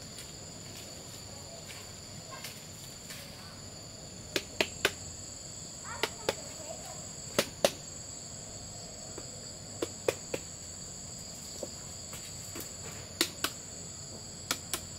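Steady high-pitched insect chirring in two tones, broken by sharp snaps, several in quick pairs, from someone moving on foot through the orchard undergrowth.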